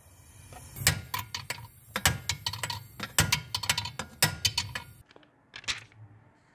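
A quick, irregular run of sharp clicks and knocks, about four or five a second, that stops about five seconds in, followed by a few more clicks shortly after.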